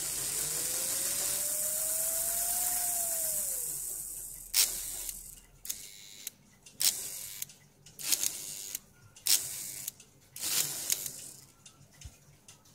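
Small model-locomotive electric motor running, its whine rising in pitch then dropping away as it slows and stops. After that, the electromagnetic reversing relay of a Märklin 3046 steam locomotive snaps over about five times with sharp clicks, each followed by a brief stir of the mechanism. The relay has just been cleaned and straightened, and its spring is still too strong.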